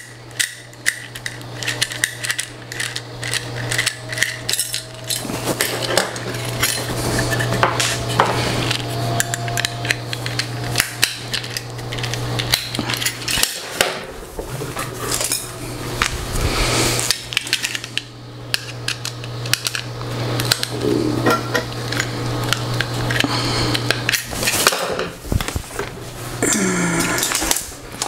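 Irregular clicks and clatter of hand tools and small metal and plastic parts as a bracket is worked off the back of the printer's control assembly, over a steady low hum.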